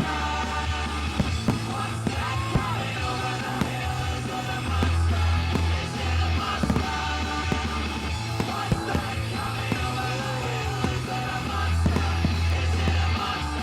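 A rock song with singing plays loudly over a fireworks display's sound system, with a heavy, pulsing bass. Sharp bangs of firework bursts break through the music several times.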